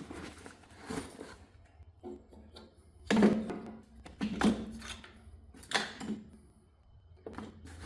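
Handling noise: about four short knocks and rustles, a second or so apart, as the saw and its accessories are handled and packed into their canvas case.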